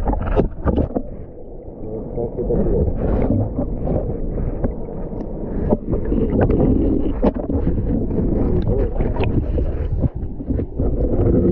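River current heard underwater: a dull, muffled rush with no treble, broken by scattered clicks and knocks from the gravel riverbed.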